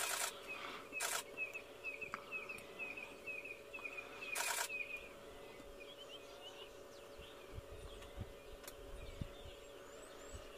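Camera shutter firing in three quick bursts, at the start, about a second in and about four and a half seconds in. Under it a bird gives a run of short, quick, evenly repeated high chirps for the first five seconds or so.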